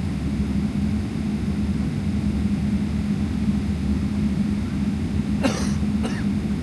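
Steady low rumble and hum of a Boeing 777-300ER's cabin, with its GE90 engines running. Near the end, a person coughs twice in quick succession.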